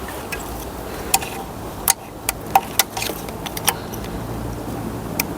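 A string of sharp, irregular clicks and light rattles from plastic electrical connectors on the fuel-injector wiring harness being worked loose and unclipped by hand, over a steady low hum.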